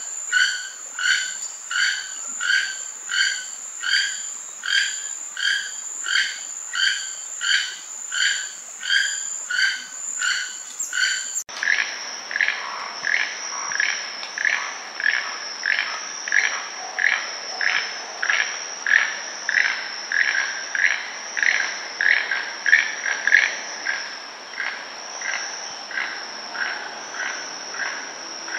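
Keel-billed toucan calling: a frog-like croak repeated about one and a half to two times a second, over a steady high insect drone. About a third of the way in the recording cuts abruptly; the insect drone drops in pitch and the croaks come a little faster.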